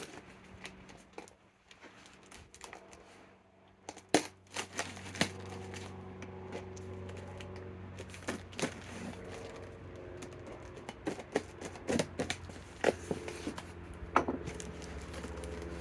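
Cardboard shipping box being handled and its packing tape cut and pulled, giving scattered clicks, knocks and crinkles. A steady low hum comes in about four seconds in.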